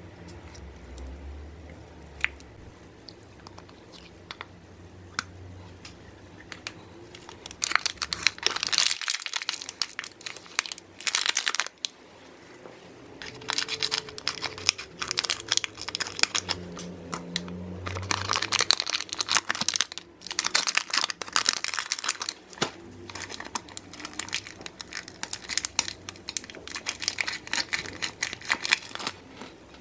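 Paper-and-foil wrapper crinkling and tearing as it is peeled off a block of grey clay. The crackling comes in several bursts with short pauses between, after a few quieter seconds at the start.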